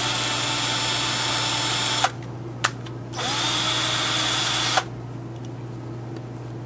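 Handheld electric drill with a tiny 0.08 cm bit running steadily as it drills a hole through a graphite plate. It stops with a click about two seconds in, runs again from about three seconds, and stops with another click near five seconds.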